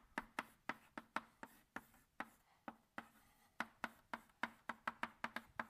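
Chalk striking and tapping on a blackboard while equations are written: a rapid, irregular run of sharp clicks, about five a second.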